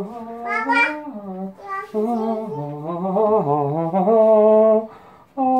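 A voice singing a wordless tune in held notes that step up and down, with a short break near the end.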